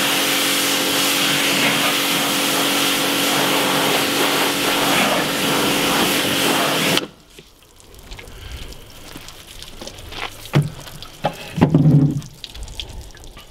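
Pressure washer running, its pump humming under the hiss of the water jet hitting the boat's hull. It cuts off abruptly about seven seconds in when the trigger is released, and a few short knocks follow near the end.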